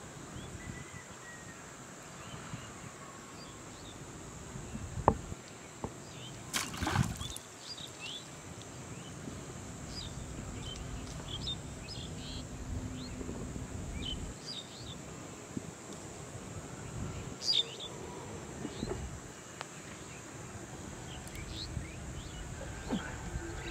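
Open-air field ambience: a steady background hiss with scattered short, high bird chirps. A sharp knock about five seconds in and a brief rustling burst just after are the loudest sounds.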